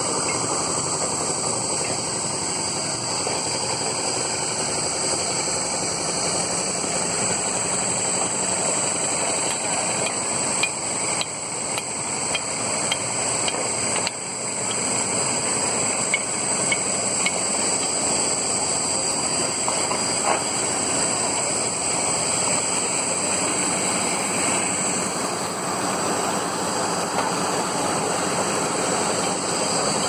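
Construction-site noise: an engine running steadily under a constant hiss, with a few light knocks between about ten and seventeen seconds in.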